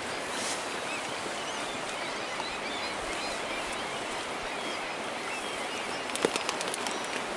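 Steady rushing of a shallow river over gravel, with faint high bird chirps scattered through it. About six seconds in comes a short run of sharp clicks.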